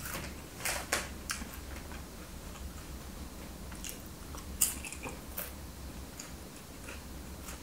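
Eating sounds of a crunchy snack being bitten and chewed close to the microphone: a few short crunches and mouth clicks about a second in, and again around four to five and a half seconds in, the strongest near four and a half seconds.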